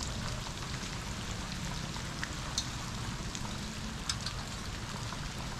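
Steady rain hiss, with a few sharp drop ticks now and then.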